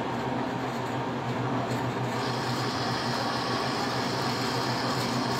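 Steady mechanical hum with a hiss over it, the hiss growing louder about two seconds in.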